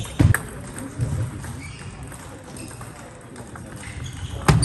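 Sharp knocks of a table tennis ball on bat and table: a loud one about a quarter second in, lighter clicks in between, and another loud one near the end as the next rally starts. Voices murmur in the background.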